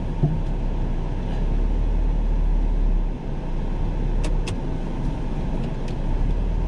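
Citroën car driving, heard from inside the cabin: a steady low rumble of engine and tyre noise, with a few light clicks about two-thirds of the way through.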